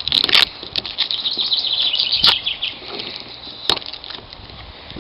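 Protective plastic film being peeled off a mounting plate: a crackling, crinkling rustle with a few sharp clicks, growing quieter after about three seconds.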